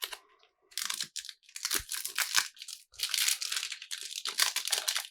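Foil wrapper of a trading-card booster pack crinkling and tearing open in a run of rustles, starting about a second in.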